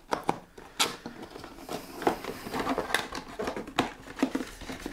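Cardboard box being opened by hand: card scraping and rubbing as the flap is worked open, with several sharp clicks and snaps.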